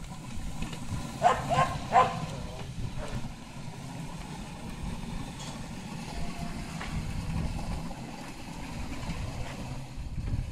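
A remote-controlled sweeper robot, the RP-014.2 'Badger', driving over concrete with a steady low rumble of its drive and brush. A dog barks three times about one to two seconds in.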